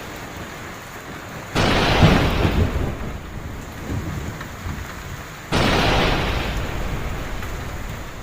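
Heavy rain falling steadily, broken twice by sudden claps of thunder about four seconds apart, each starting sharply and rumbling away over a couple of seconds.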